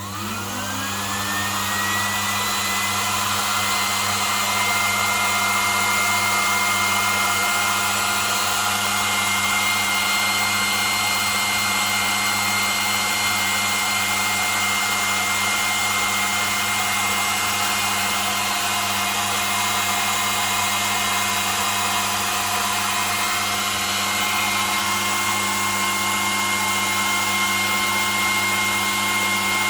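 A small electric sewing-machine motor, run on 400 V, is switched on and spins up with a rising whine that levels off after about two seconds. It then runs steadily at full speed with a high whine over a low hum.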